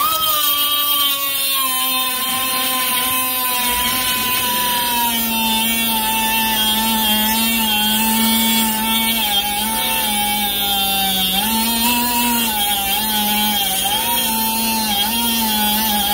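Central Pneumatic composite air die grinder spinning a cutoff wheel through a half-inch steel bar: a steady high whine that sags in pitch as the wheel bites in, then wavers up and down as the cut is pushed. A low hum joins about four seconds in.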